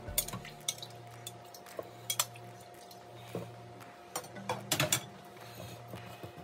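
A slotted spoon clinking and knocking against a metal roaster pan as wet potato chunks are dropped into it, with a few sharp clinks and a cluster of knocks about five seconds in.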